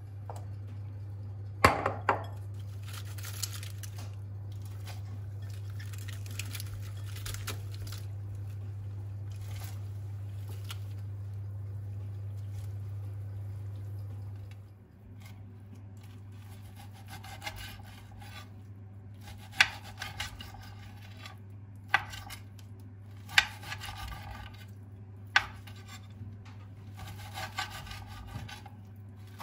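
Kitchen handling sounds: dishes and utensils clinking, knocking and scraping against one another, with several sharp clinks. Under them runs a steady low hum that drops in level about halfway through.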